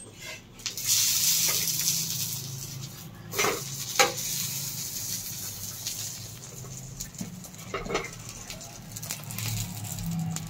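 Oil sizzling on a hot iron tawa around a frying omelette. The hiss jumps up about a second in as oil goes onto the pan, then slowly dies down, with a few sharp clinks of a steel spoon against the pan.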